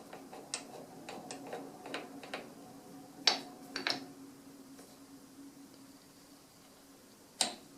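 Scattered light metal clicks and taps from handling and adjusting a quick-change tool holder on a lathe toolpost, with sharper knocks about three seconds in and again near the end, over a faint steady hum.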